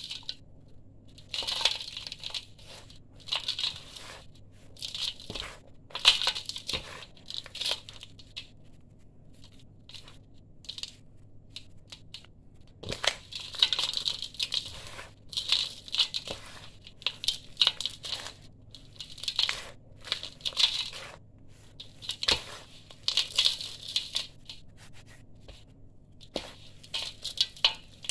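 Dry sand-cement mixture crunching as hands squeeze and crumble it and let it sift down into a stainless steel bowl. The gritty crunches come in bursts every second or two, with a lull of a few seconds a third of the way through.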